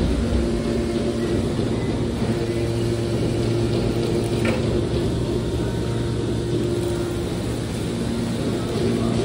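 Hydraulic scrap-metal baler running: a steady hum from its hydraulic power unit as the ejector cylinder pushes a compressed bale of aluminium scrap out of the chamber. A brief click about four and a half seconds in.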